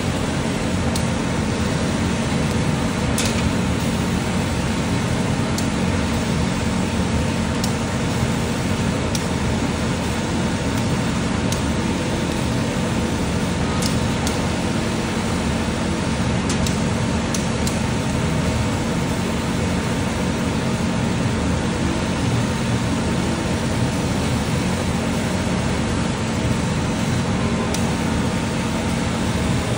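Laser cutting machine at work: a steady hum and rush of air from its fans and air assist, with a few faint ticks.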